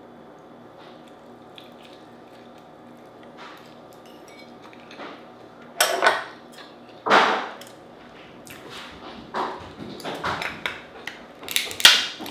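Dungeness crab shell being cracked and picked apart by hand and with a metal crab cracker. Two loud cracks come about six and seven seconds in, then a run of smaller clicks and snaps, loudest near the end.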